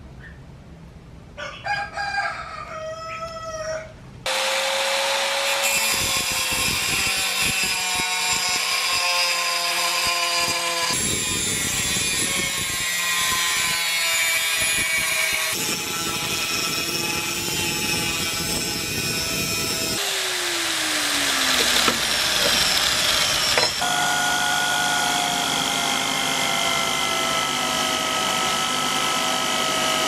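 A rooster crows briefly in the background. Then, from about four seconds in, a power tool starts suddenly and cuts sheet steel: an angle grinder with a thin cutting disc, heard in several joined takes. Near the end comes a steady whine from an electric drill spinning a wire wheel.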